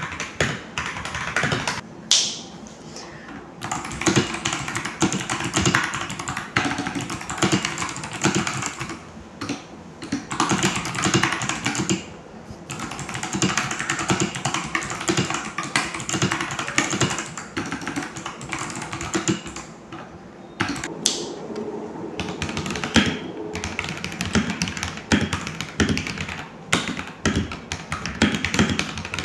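Rapid typing on stock mechanical keyboards. First an FL-Esports FL980CPS with clicky Kailh Box White switches, then, after a short pause near the end, an FL-Esports FL680SAM with linear Gateron White switches. The keystrokes are dense and clattering, with brief lulls about two seconds in and again around twenty seconds in.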